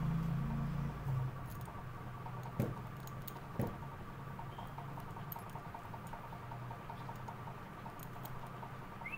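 Puppy play-biting and pawing at a person's hand on a bed: faint rustling with small scattered clicks, and two soft thumps, about two and a half seconds in and again a second later.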